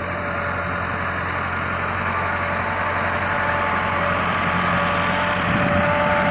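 Massey Ferguson 385 tractor's four-cylinder diesel engine running steadily under load while it drags a laser land-leveling blade over loose dry soil. It grows gradually louder as the tractor comes close.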